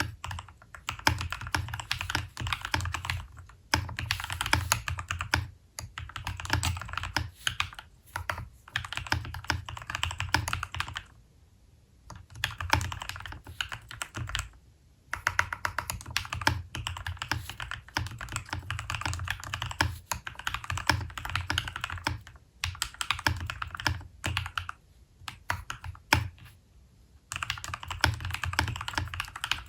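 Typing on a mechanical keyboard with hand-lubed Glorious Lynx linear switches. Fast runs of keystrokes are broken by brief pauses three times.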